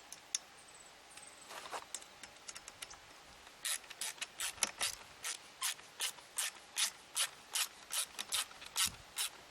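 Screwdriver driving a self-tapping screw into the aluminium mast joint, giving a steady run of sharp clicks, about two to three a second, starting about four seconds in after a few scattered handling clicks.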